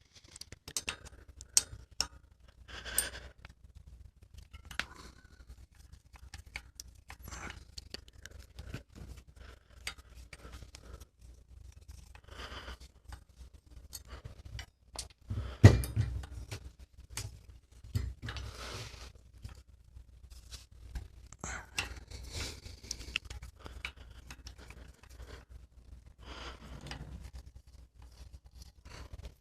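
Irregular clicks, scrapes and light metallic clinks of hand tools working on a bicycle's disc brake rotor and its bolts, with one louder knock about halfway through.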